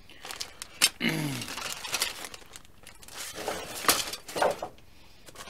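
Clear plastic bags of model-kit parts sprues crinkling and rustling as they are handled in a cardboard kit box, with irregular sharp crackles, two of them louder. A short voice sound, falling in pitch, about a second in.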